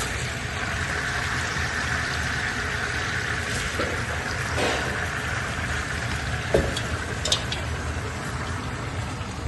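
Sliced onions and seared beef sizzling in a hot oiled pan as the onions are dropped in, with a few light knocks against the pan midway through.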